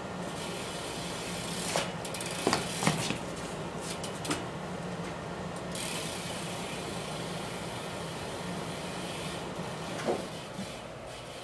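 A 2011 Verde Radia flatland BMX bike clattering on the floor during trick practice: a run of sharp knocks between about two and four and a half seconds in, and one more near the end. Under it runs a steady hum.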